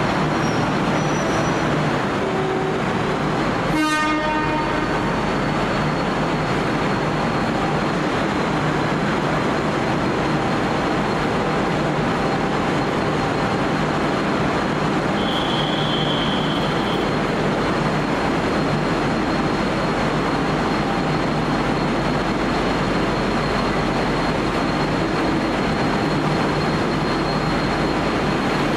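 V/Line N Class diesel locomotive running steadily, with a steady high whine over the engine noise. A brief sharp sound comes about four seconds in, and a short high beep around the middle.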